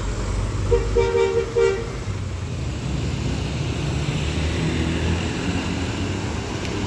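Intercity coach air horn sounding two short blasts about a second in. A diesel bus engine then runs in a low rumble as another coach approaches.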